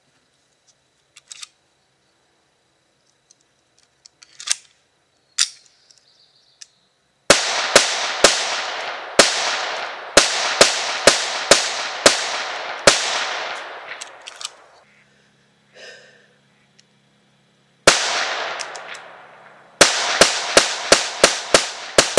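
Ruger Mark III .22 pistol firing: after a few faint clicks, a string of about ten quick shots roughly two a second, a pause, one more shot, then another fast string near the end, each shot with a short ringing tail.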